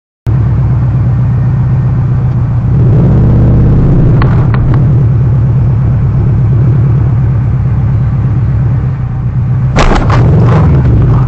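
Loud, steady low rumble of a car's engine and road noise picked up by a dashcam inside the cabin, starting abruptly just after the start. A few sharp clicks come about four seconds in, and a cluster of knocks near the end.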